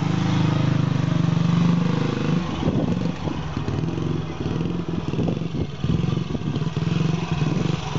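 Single-cylinder engine of a 1950s MV Agusta 175 Idrobad prototype motorcycle running as the bike pulls away through its infinitely variable hydraulic drive. For the first two seconds or so it runs steady and close up. After that it is heard from further off as the bike rides away and past, with some clatter and the engine note rising and falling.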